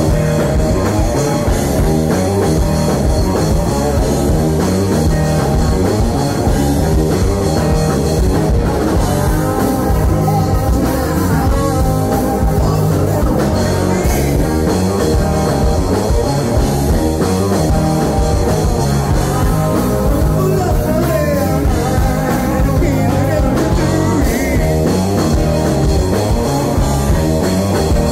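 A live rock band playing: two electric guitars, bass guitar and drum kit, loud and steady throughout.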